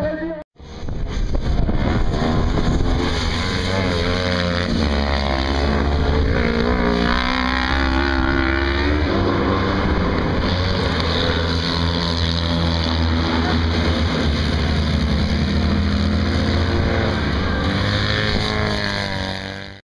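Several off-road racing buggy engines running hard, their pitch rising and falling as the buggies accelerate and lift through a corner. A brief gap about half a second in; the sound cuts off just before the end.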